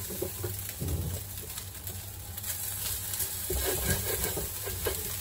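Egg fried rice sizzling in an oiled metal wok, with a wooden spatula stirring and scraping it through the pan in scattered light scrapes: the sound of the rice frying well.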